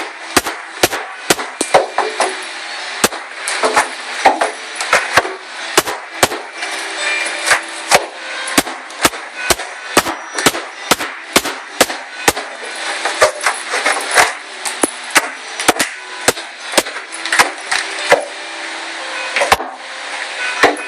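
Repeated sharp blows on a wooden subwoofer enclosure, roughly two a second, as it is being broken apart for removal.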